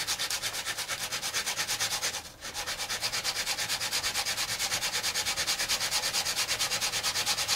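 Carbon brush for an angle grinder rubbed back and forth by hand on a flat abrasive disc: a fast, even scraping of several strokes a second, with a short break a little after two seconds in. The carbon is being worn down by hand to fit the grinder's brush holder.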